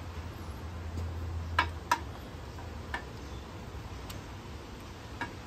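About five sharp metal clicks and light ticks, irregularly spaced, two of them close together near two seconds in, as a cam bearing installer tool is fitted and positioned in the cam bore of a Ford 302 small-block.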